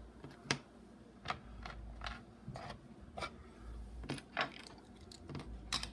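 Light, irregular clicks and taps of small 3D-printed plastic parts being handled and set down as a miniature beehive frame is taken apart, its end bars coming out of the grooves they snap into.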